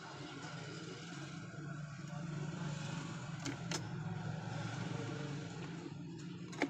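A steady low hum, with a few light clicks of needle-nose pliers and wire against the plastic heater housing, two close together in the middle and one near the end.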